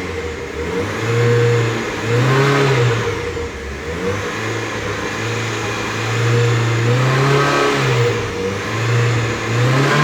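Modified Chevrolet Celta's 1.0-litre four-cylinder engine being revved over and over. The pitch rises and falls back every second or two.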